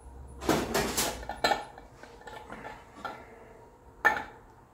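A straight edge knocking and clicking against a wheel's hub and center cap as it is laid across and rocks on the cap, a sign that the cap sits further out than the wheel's mounting flange. Several sharp knocks, most within the first second and a half, then a couple of single ones later.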